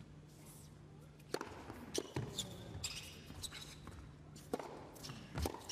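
Tennis ball struck by racquets on an indoor hard court during a serve and rally: a few sharp, separate hits, the first about a second and a half in, over a low hum of the hall.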